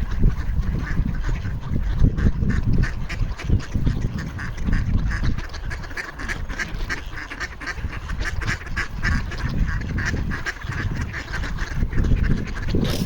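A flock of ducks quacking in a rapid, continuous chorus, begging for food, over a low rumble.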